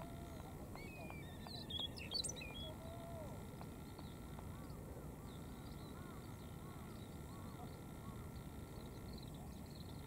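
Male Siberian rubythroat singing: one short phrase of quick, varied high whistles about two seconds in, with a few faint chirps later, over a steady background hiss.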